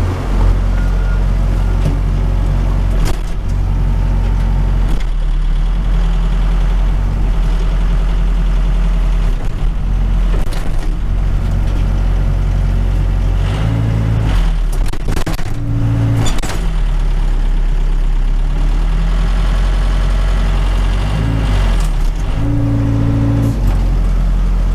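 Case 580 Super K backhoe's diesel engine running, heard from inside the cab, pulling harder in short spells as the backhoe hydraulics are worked. A few sharp knocks come around the middle.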